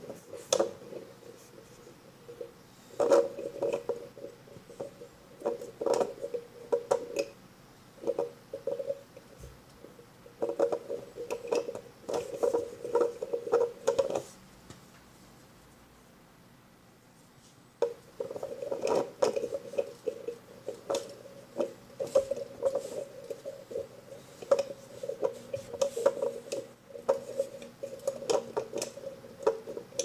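Handling noise from a microphone pop filter and foam windscreen being fitted: bursts of rubbing, scraping and clicking, with a pause of about three seconds midway.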